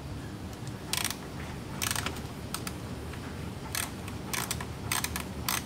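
Cordless ratchet backing out small T25 Torx bolts from a wiring bracket in a series of short, irregular bursts.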